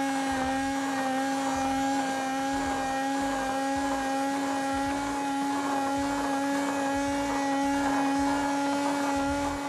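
Hand blender motor running steadily with a constant whine, blending melted chocolate to break up the last lumps and make it smooth.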